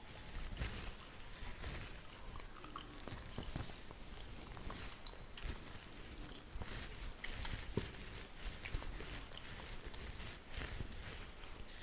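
Fingernails scratching through a beard close to the microphone: a continuous run of short, crisp, crackly strokes at an irregular pace.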